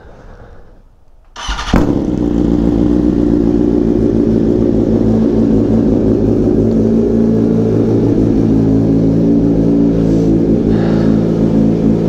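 A BMW M-liveried superbike's inline-four engine cranked by its starter and catching about a second and a half in, then idling steadily and loudly.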